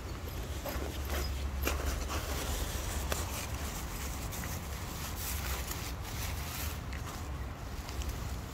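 Footsteps on paving stones, irregular short scuffs and clicks, over a steady low rumble.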